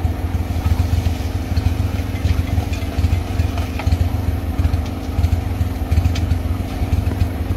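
Boat engine running steadily at a low, even speed, with faint rattles as crawfish are shaken out of a trap onto a metal sorting tray.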